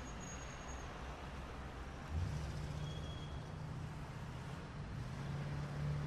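Suburban street ambience: a motor vehicle's low engine hum comes in about two seconds in and grows stronger near the end, over a steady background of traffic noise. Two short high tones sound briefly, one near the start and one about three seconds in.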